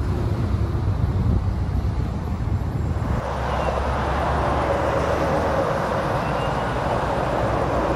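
Low, steady road rumble heard from inside a moving vehicle, which changes suddenly about three seconds in to the steady noise of freeway traffic passing.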